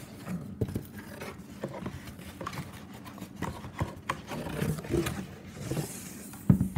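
Shrink-wrapped vinyl record box set scraping and rubbing against its cardboard shipping carton as it is pulled out, with scattered knocks and rustles, then a loud thump near the end as it is set down on a wooden table.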